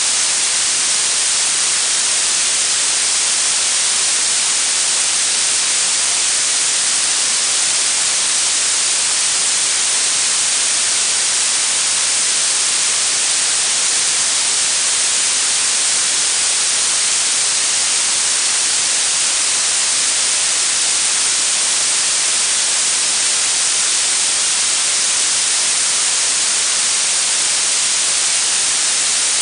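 Blue noise: a steady, even hiss weighted toward the high end, with no change in level or character.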